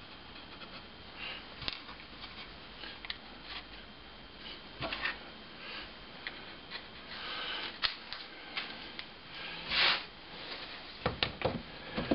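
A small wooden jig being handled: scattered light clicks and taps of wood and dowels, a brief louder rub about ten seconds in, and a few sharp knocks near the end as it is set down on the bench.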